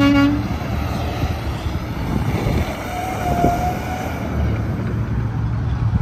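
Interstate highway traffic with trucks passing, a steady heavy rumble throughout. A short, pitched horn note sounds right at the start, and a fainter whine is heard about three seconds in.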